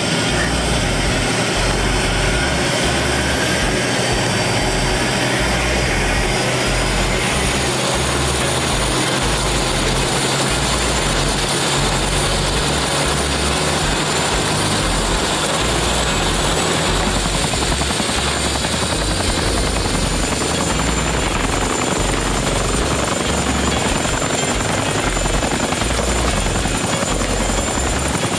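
Turbine helicopter running steadily, its engine and rotor making a dense, even noise with a thin high whine from the turbine.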